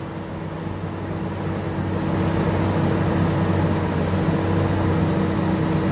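Skid steer engine running steadily under the operator's control while the bucket is worked, growing louder over the first two seconds and then holding.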